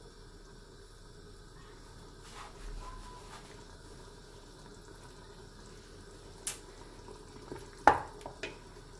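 Pot of meat, tomatoes and herbs cooking on the stove with a faint steady hiss, then a few sharp knocks of a utensil against the pot in the last few seconds, the loudest about eight seconds in.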